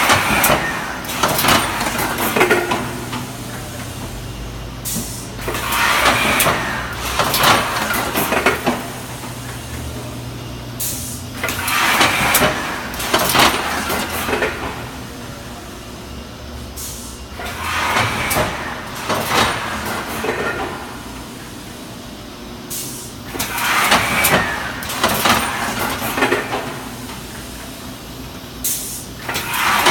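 Industrial thermoforming machine running through its cycle about every six seconds. Each cycle brings a two-to-three-second burst of hissing air and mechanical clatter over a steady low hum.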